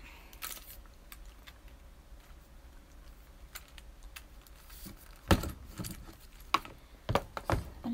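Aluminium tripod legs and their plastic leg locks clicking and clacking as they are handled and spread, quiet at first, then several sharp clacks in the last few seconds.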